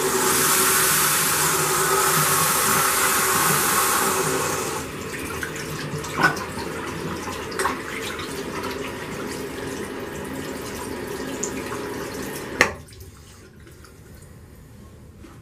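Bathroom sink tap running, at full flow for about five seconds and then at a lower steady flow with a couple of short sharp knocks. It is shut off with a sharp clunk about twelve seconds in.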